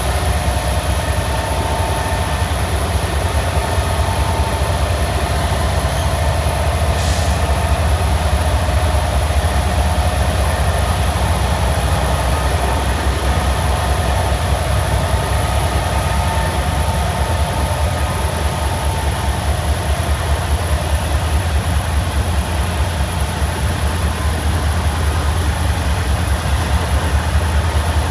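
Freight train rolling past: a steady, loud low rumble of wheels on the rails, with faint steady higher tones above it that fade out about twenty seconds in.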